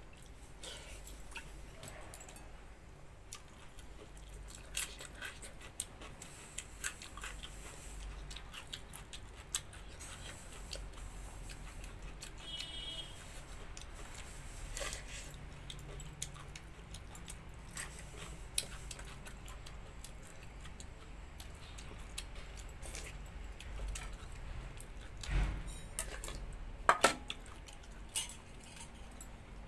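Hand-eating sounds: scattered small clicks and clinks as fingers and bangles knock against a steel bowl of watered rice (pakhala), with quiet chewing. A few louder clinks come near the end.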